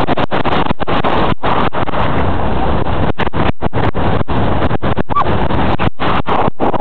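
Wind buffeting the camera microphone: a loud, steady rushing rumble cut by many brief dropouts.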